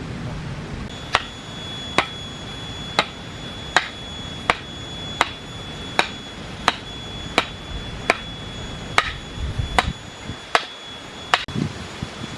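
Chopping with a blade on a board, about fourteen sharp, evenly paced strokes at a little more than one a second, stopping shortly before the end.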